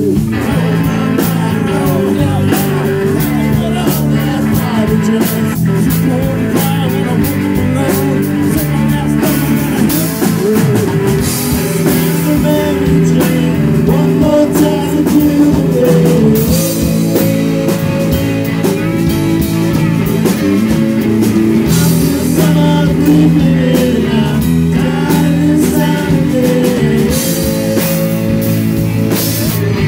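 Live rock band playing through a small bar PA: electric guitars and a drum kit, with a male voice singing.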